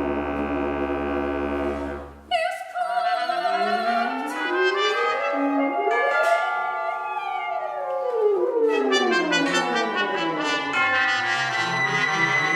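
Contemporary chamber ensemble of winds, brass, strings, piano and percussion playing: a held low chord breaks off about two seconds in, then after a sharp attack several lines run up and down in pitch, crossing one another, before settling into a sustained chord near the end.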